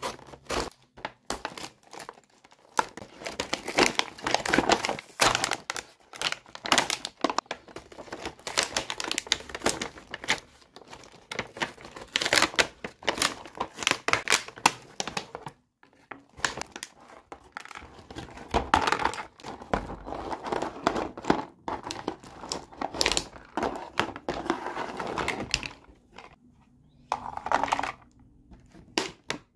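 Stiff clear plastic blister packaging crinkling, cracking and tearing as it is cut and peeled off its cardboard backing card. Near the end it gives way to a few sharp clicks of small plastic toy pieces being handled.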